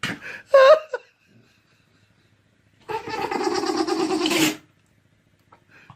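A pet's vocal call: a short call with a rising and falling pitch at the start, then a longer, steady one lasting about a second and a half in the middle.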